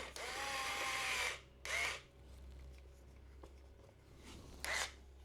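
Hanboost ES01 cordless electric screwdriver's small motor whirring for about a second and a half, then two short bursts, once near two seconds in and again near the end.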